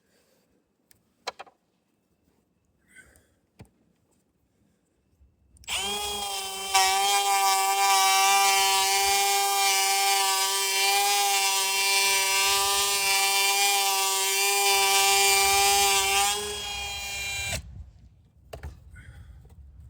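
Electric power tool motor, such as a drill, starts about six seconds in and runs at a steady, even whine for about eleven seconds, then cuts off suddenly near the end. A few faint clicks come before it.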